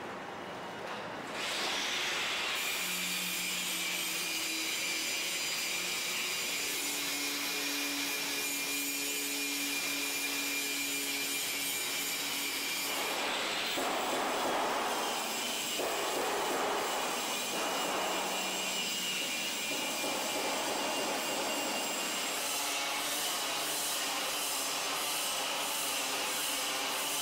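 Steady abrasive scraping and rubbing of steel being worked, with faint steady tones underneath. It swells and eases in long strokes midway and turns into a fast rhythmic scraping near the end.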